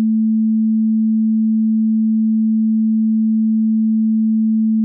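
A steady, pure sine-wave test tone at 220 Hz, the note A3 just below middle C, holding one unchanging pitch.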